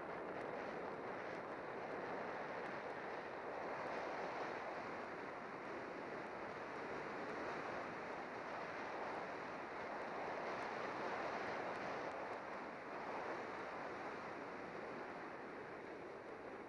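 Steady rush of wind buffeting the microphone of a camera on a bicycle speeding downhill, mixed with road noise, easing a little near the end.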